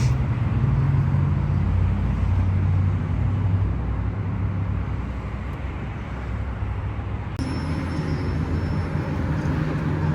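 A running motor vehicle: a steady low engine hum with road or traffic noise, its pitch shifting a little and changing abruptly about seven seconds in.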